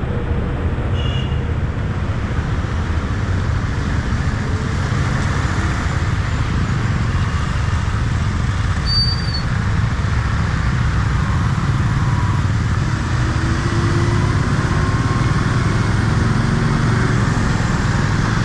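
Motorcycle riding on the road: steady engine and wind rushing over the rider's microphone.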